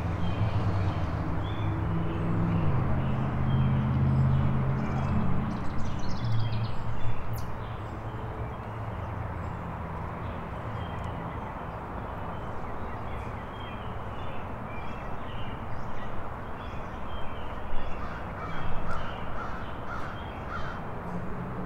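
Outdoor ambience with crows cawing several times in short repeated calls near the end and small birds chirping throughout. A low rumble runs under the first seven seconds or so, then drops away.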